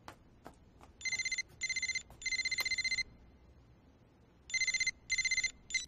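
Mobile phone ringtone: a high, trilling electronic ring in two rounds, the first of three pulses (short, short, long), the second of three with the last pulse cut off short as the call is answered. A few faint clicks sound just before the first ring.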